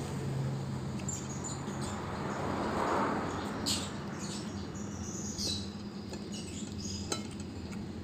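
Close-up chewing and lip-smacking while eating rice by hand, with a few light clicks of fingers against a ceramic plate, over a steady low hum.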